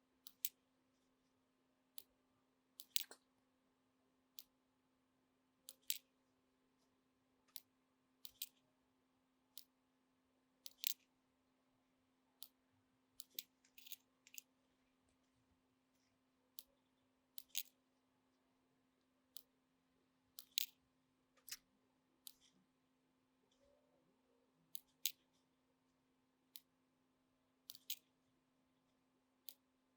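Sharp little clicks and snips of small hand tools working on the cassette deck's circuit board during recapping, coming irregularly about once a second, sometimes in quick pairs, over a faint steady hum.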